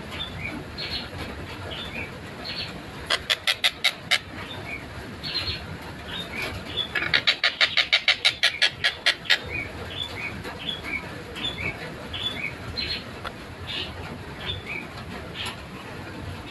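Collared kingfisher (tengkek buto) giving two loud, rapid series of sharp repeated notes, a short one about three seconds in and a longer one of about twenty notes from about seven seconds, over scattered short chirps.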